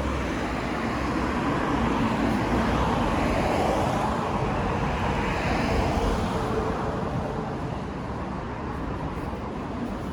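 Road traffic: a car passing, its tyre and engine noise swelling over the first couple of seconds, staying loudest until about six seconds in, then fading away.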